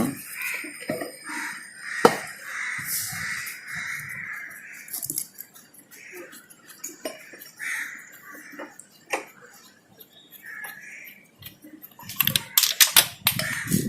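Hand tools clinking and scraping on metal as the nuts of the tappet inspection covers on a motorcycle engine are undone, with the engine switched off. Scattered clicks, a sharp one about two seconds in and a quick run of them near the end.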